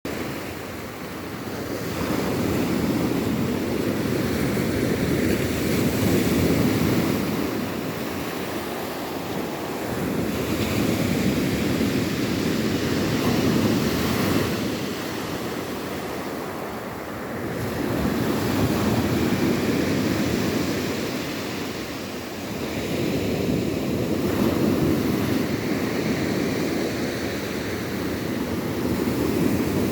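Rough sea: waves surging and breaking in slow swells about every seven or eight seconds, with wind.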